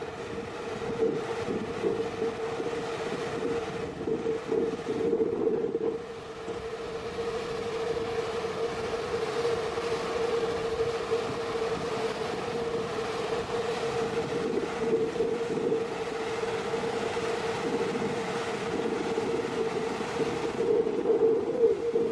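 Muddy flash-flood torrent rushing over the ground: a steady, loud rush of water with a constant hum mixed in.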